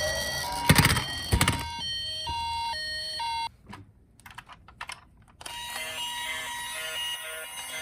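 Electronic toy emergency-vehicle sirens: a two-tone siren alternating between a high and a lower note, with two loud clacks about a second in. It cuts off about three and a half seconds in, leaving a few small clicks, and a second toy's electronic siren starts about five and a half seconds in.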